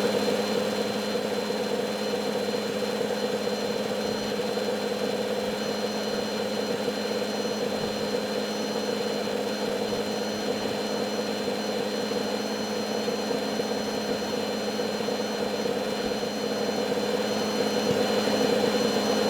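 Oliver 880 tractor's gasoline engine running at a steady speed, a constant drone with no change in pitch.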